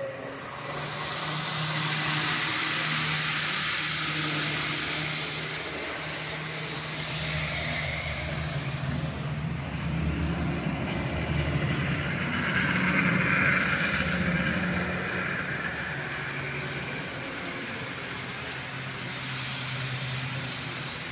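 Model trains running on a layout: a steady low hum under a hissing rush that swells and eases, loudest a couple of seconds in and again past the middle.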